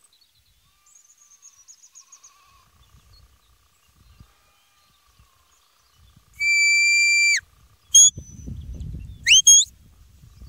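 Sheepdog handler's whistle commands to the working dog: one long steady note that drops off at its end, then a short blip and two quick rising notes, with a low rumble between them.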